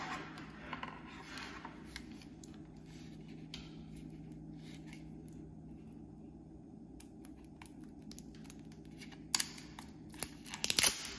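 Fingernails scratching and picking at a clear plastic protective film on a small plastic device case. It is faint at first, then a cluster of sharp clicks and crinkly scrapes comes in the last two seconds as the film comes away.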